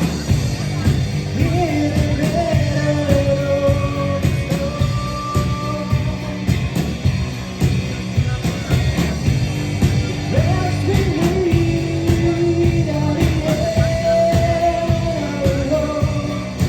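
Rock trio playing live: drums and bass guitar under electric guitar, with a melody of long held notes that slide into pitch, twice rising to a higher phrase.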